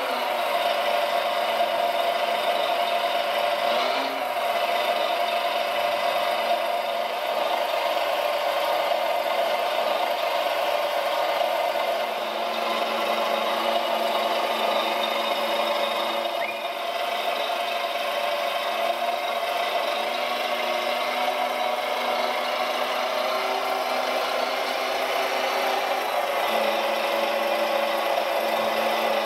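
Hydraulic pump of a working RC Volvo L250G wheel loader model running steadily, a mechanical whine with a lower hum beneath, as the loader works its boom and forks.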